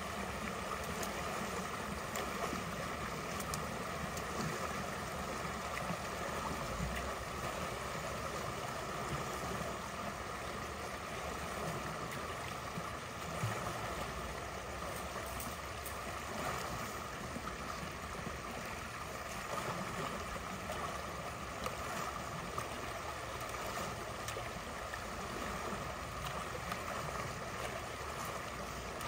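Steady rush of creek water flowing through a beaver dam that is being cleared of brush.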